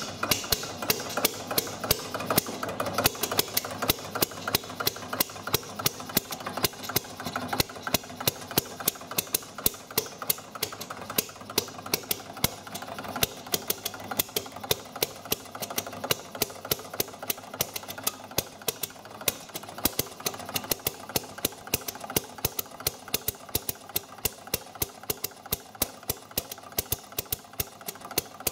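Small homemade compressionless combustion engine with valve ignition running steadily. It fires in an even series of sharp pops several times a second over a fast, lighter mechanical clatter.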